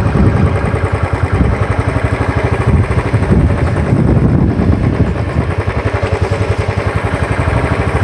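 Motorcycle engine running while the bike rides along, a steady rapid pulsing.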